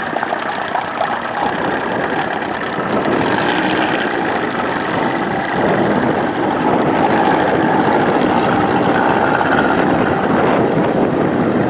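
Outboard motor running on the water, growing louder about halfway through and then holding steady.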